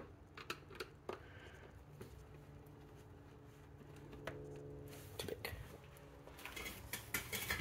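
Faint scattered clicks and light metallic clinks of hand tools working at hose fittings in an engine bay, over a faint steady low hum. The clicks gather in the first second and again in the last two and a half seconds.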